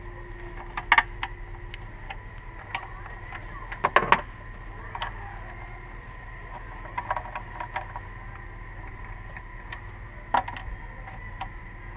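Hand tools clinking and knocking on metal: scattered sharp clicks, the loudest cluster about four seconds in, over a steady low hum.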